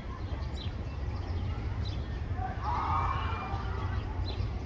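Sparrows chirping in short, scattered notes over a steady low rumble, with a louder, longer sound about two and a half seconds in.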